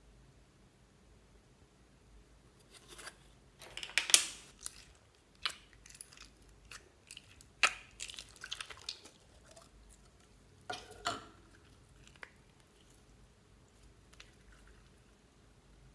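A plastic jar of clear slime with beads being opened and handled: scattered sharp plastic clicks and crackles, loudest about four seconds in and again near the middle, then quieter squishing as the beaded slime is worked out of the jar.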